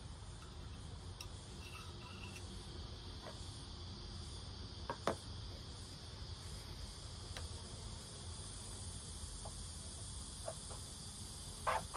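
Steady high-pitched insect chorus, with a few light clicks and knocks of metal parts as a blower-fan motor and its squirrel-cage wheel are handled, the loudest knock about five seconds in.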